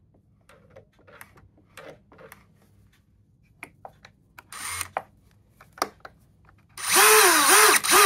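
Light scattered clicks and knocks, then near the end a DeWalt cordless drill runs loudly for about a second, its motor whine rising and falling about three times as the trigger is worked through a wooden lever.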